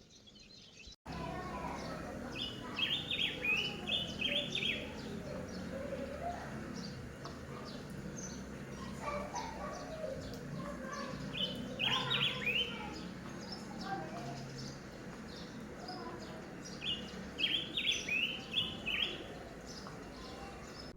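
Songbirds singing outdoors, starting abruptly about a second in. Three bursts of quick, high chirping phrases come about three, twelve and eighteen seconds in, over a steady low background murmur.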